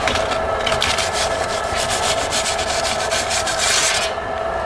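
Metal pizza peel scraping across the floor of a pizza oven as pizzas are slid and turned, a quick run of scrapes about four a second that stops shortly before the end, over a steady hum.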